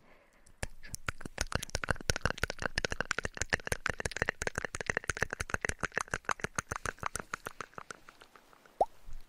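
Rapid ASMR tapping close to a binaural microphone, about ten quick taps a second with a ringing, hollow tone, kept up for about seven seconds. Near the end, one short rising 'bloop', like a water-drop plop.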